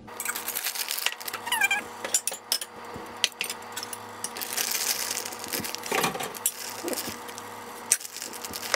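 Rustling of a plastic bag of shredded Colby and Monterey Jack cheese and scattered light clicks and clinks against a plate as the cheese is sprinkled by hand onto the food. The rustling is heaviest about four to six seconds in.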